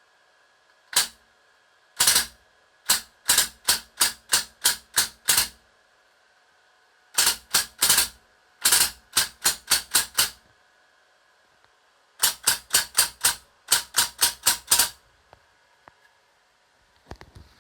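Homemade gas blowback airsoft gun firing: a single shot, then a pair, then strings of sharp cracks at about three to five a second, each burst cut off by a pause. A few faint clicks come near the end.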